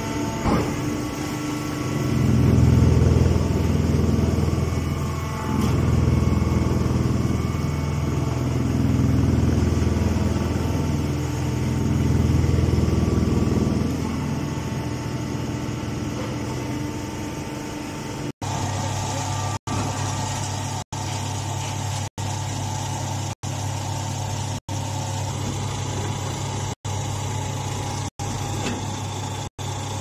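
Hydraulic chopped-hay bagging baler running: a steady machine hum from its motor and conveyor that swells louder and eases off several times. Past the middle the hum changes to a steadier, brighter one that cuts out for an instant about once a second.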